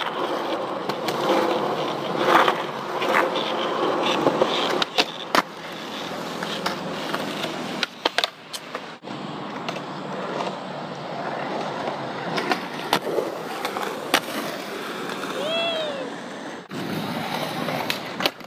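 Skateboard wheels rolling over a concrete skatepark, with sharp clacks of the board hitting the concrete at irregular intervals throughout.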